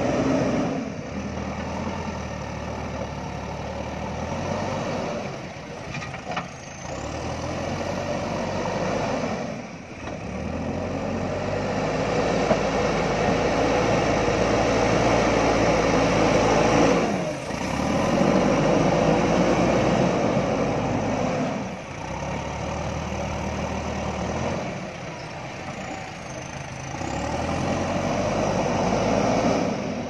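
JCB backhoe loader's diesel engine working under load as it pushes soil and lifts a full front bucket, getting louder and quieter by turns and dropping off abruptly a few times.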